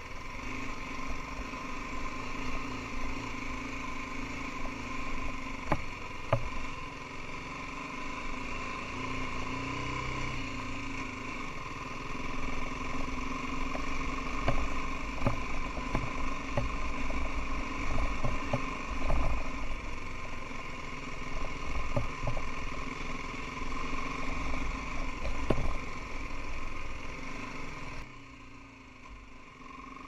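BMW G 310 GS's single-cylinder engine running steadily under way, with scattered knocks and clicks as the bike rides over a rough lane. The engine pitch dips and rises once about ten seconds in. Near the end the sound drops suddenly to a quieter level.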